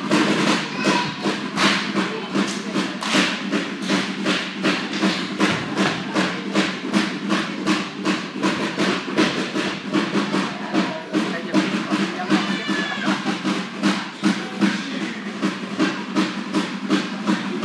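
Fast, even percussion beat from a seated group dance, about five sharp strokes a second, such as claps and slaps, with a brief high wavering call about twelve seconds in.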